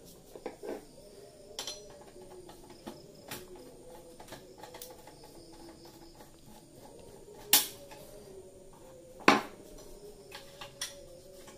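Scattered clicks and knocks of hard plastic and metal parts being handled inside a desktop PC case as a part is worked loose, with two sharp clacks a little past the middle.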